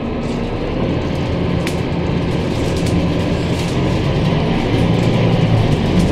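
Scania K310UB city bus under way, heard from a rear seat: a steady low engine hum with road noise, growing slightly louder, and a couple of sharp rattles from the interior fittings.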